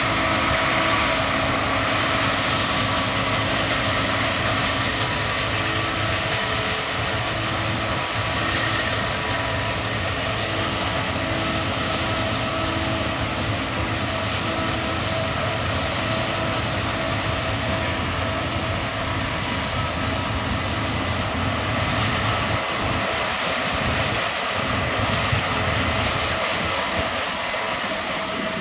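Case combine harvester running steadily while harvesting barley: a continuous machine drone with several held tones over it.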